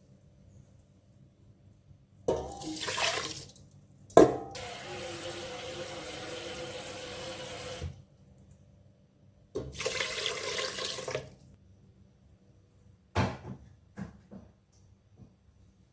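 Water tap running into a sink in three spells, the longest a steady stream of about four seconds. A sharp knock comes just as that stream starts, and a few short clacks come near the end.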